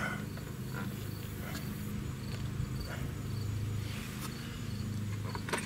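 Outdoor ambience: faint, evenly repeated insect chirps over a steady low hum, with a few light clicks.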